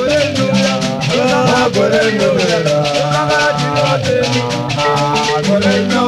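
Background music: a shaker keeps a quick, steady beat under a gliding melody.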